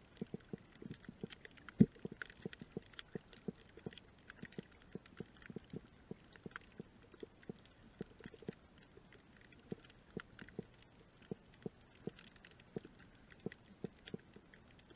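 Underwater sound of a coral tide pool heard through a submerged camera: an irregular crackle of small clicks, several a second, with one louder click about two seconds in.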